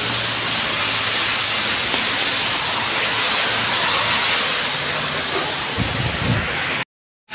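Steady hiss of light rain and traffic on a wet street, cutting off abruptly just before the end.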